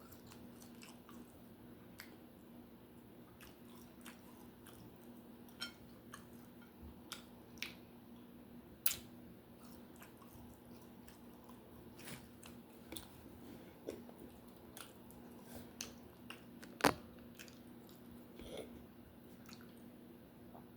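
Close-miked chewing and biting of a cheeseburger and fries: scattered soft wet mouth clicks and smacks, the sharpest about nine and seventeen seconds in, over a faint steady hum.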